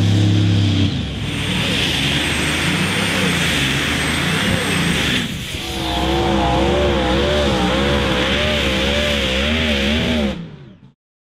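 Modified pulling tractors' engines running hard at high revs, the sound changing abruptly twice. In the last stretch the engine note wobbles up and down in pitch about once a second, then the sound fades out near the end.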